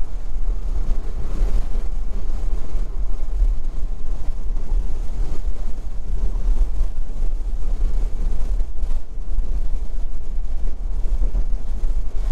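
Steady wind rush and road noise inside an open-top Honda S660 cruising at speed, with a heavy low rumble of wind buffeting the microphone.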